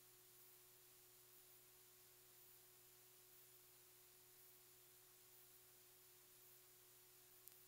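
Near silence: a faint steady hum and hiss, with one short faint tick near the end.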